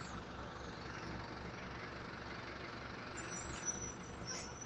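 Diesel engine of a mobile crane running steadily with a low rumble while the crane hoists a boat's mast upright. A thin high tone joins in about three seconds in.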